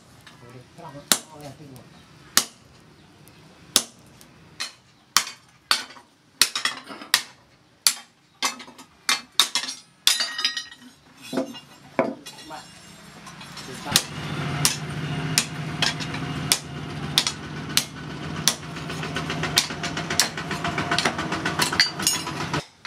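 Hammer blows on a steel tuna-knife blank lying on a steel post anvil: sharp ringing strikes at an uneven pace, sledge and hand hammer. About two-thirds of the way through, the blows turn quicker and lighter over a steady low hum.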